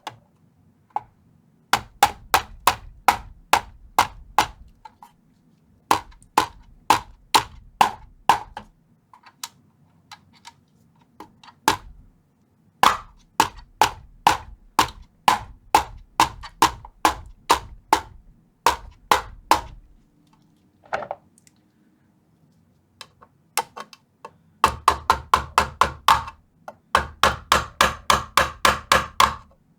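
Small hammer tapping on a flathead screwdriver to bend metal pieces flat inside a vintage tube amplifier chassis: runs of sharp metallic taps, several a second, broken by short pauses, the last run faster.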